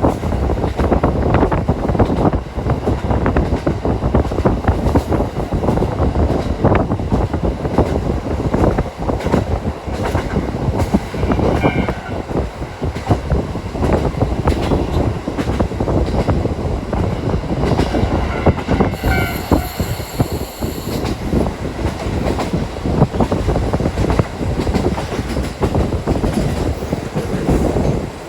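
KiHa 40 diesel railcar running along the line, heard on board: a steady rumble with wheels clattering over the rail joints. Brief high wheel squeals come twice, about twelve seconds in and again near twenty seconds.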